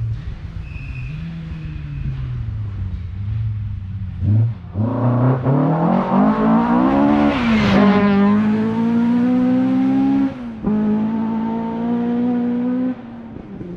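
Ford Escort RS1800 Mk2 rally car approaching at full throttle on a gravel stage, its engine note climbing steadily, then dropping sharply in pitch as it passes about eight seconds in. It carries on away with a steadier note that breaks off briefly twice.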